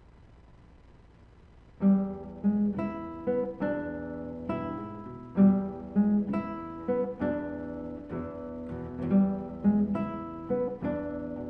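Classical nylon-string guitar music starting about two seconds in: plucked notes of a blues tune over a recurring bass figure.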